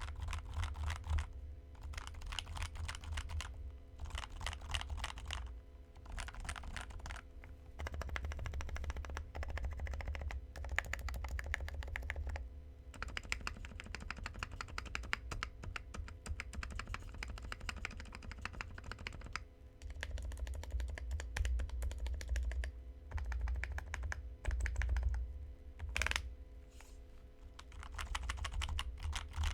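Typing on a custom 65% mechanical keyboard with lubed and filmed TTC Bluish White linear switches and PBT keycaps: fast runs of keystrokes in bursts of a few seconds, broken by short pauses, with a louder single stroke near the end, typical of the space bar.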